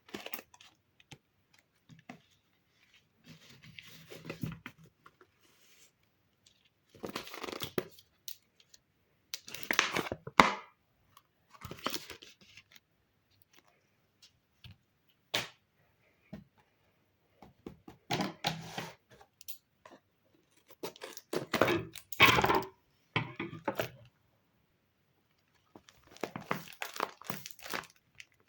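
Paper being torn and crinkled by hand in separate bursts of a second or two, with short pauses between them.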